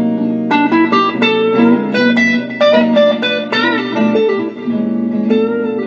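Electric guitar playing a slow-blues lead fill: quick picked single notes over steady held low notes.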